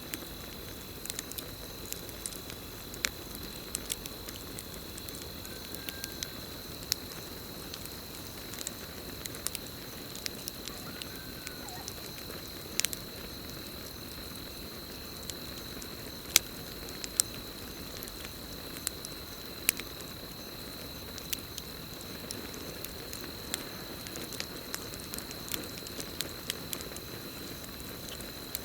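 Campfire crackling, with irregular sharp pops and snaps of burning wood over a low steady hiss. Behind it, a steady high-pitched cricket trill runs without a break.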